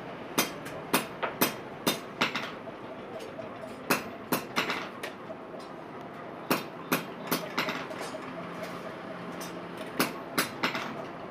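Hammer striking the steel frame of a welded mesh grille: sharp metal knocks, some ringing briefly. They come singly or in quick runs of two or three at irregular intervals, with a pause of about two seconds in the middle.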